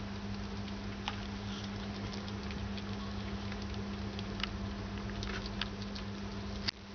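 White pet rats eating soft rice soaked in milk from a plastic bowl: scattered small wet clicks and smacks of chewing and lapping, over a steady low electrical hum. One sharp click near the end, where the sound briefly drops.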